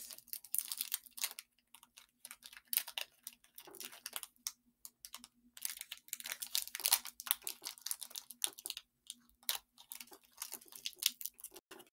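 Foil wrapper of a Pokémon TCG booster pack crinkling and crackling in quick, irregular spurts as someone struggles to tear it open.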